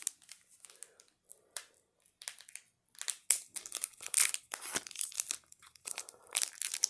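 Foil Pokémon booster pack wrapper crinkling and tearing as it is torn open by hand. Irregular crackles, sparse at first and louder and denser from about halfway through.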